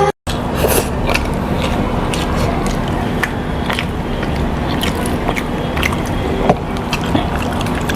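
A man eating chicken leg pieces with noisy chewing and many sharp, wet clicks, picked up close on a camera's built-in microphone. A steady low hum runs underneath.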